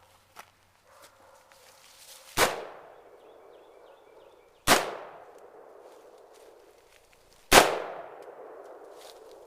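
Three single rifle shots, two to three seconds apart, each a sharp crack followed by a long echoing tail.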